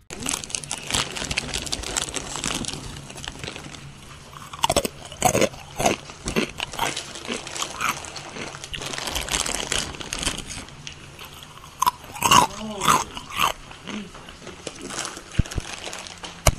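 Fritos BBQ Twists corn snacks being bitten and chewed close to the microphone: a run of irregular crisp crunches.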